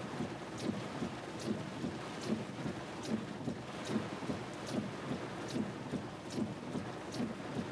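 Heavy rain falling on a car's windshield and roof, heard from inside the cabin, with the windshield wipers sweeping steadily about once every 0.8 seconds. Each sweep gives a low thump and a short high swish.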